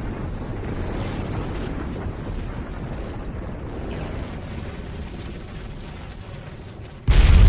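Anime battle sound effects: a steady low rumble, then, about seven seconds in, a sudden, much louder explosion-like blast cuts in and keeps going.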